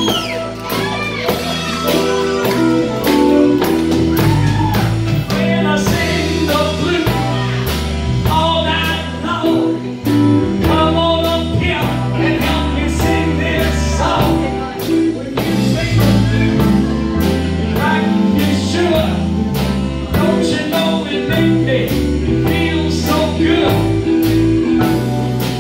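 Live band playing a blues-tinged song with singing: electric guitars, electric bass and a drum kit keeping a steady beat, with a Hammond organ through a Leslie cabinet.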